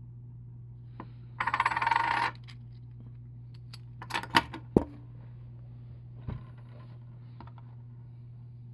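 One-ounce .999 silver bullion coins clinking against each other as they are handled and stacked on a wooden table: a rapid, ringing run of clinks about one and a half seconds in lasting about a second, then a few sharp clinks around four to five seconds, the last the loudest, and one more a little after six seconds.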